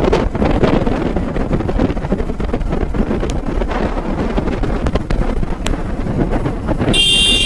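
Yamaha R15 sport bike cruising at about 70 km/h, its single-cylinder engine running steadily under heavy wind rush on the microphone. A high-pitched horn toots briefly near the end.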